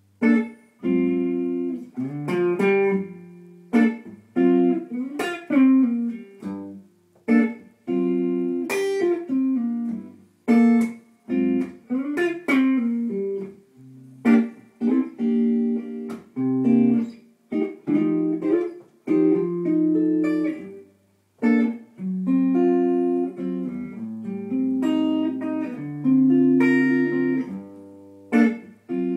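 1961 Gibson ES-335 semi-hollow electric guitar played through a Two-Rock Jet amplifier, noodling in chords and short single-note phrases, each struck and left to ring and fade, with brief gaps between phrases.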